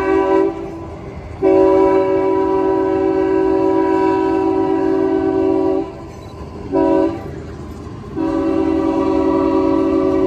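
Diesel switcher locomotive's air horn sounding a chord in the grade-crossing pattern: long, long, short, long blasts. Between the blasts the locomotive and its freight cars are heard rumbling past.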